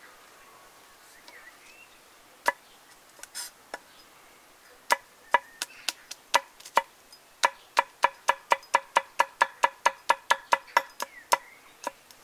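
Wide-bladed kitchen knife chopping a hot green pepper on a wooden cutting board. A few single knocks come first, then a run of sharp, ringing chops that quickens to about four a second.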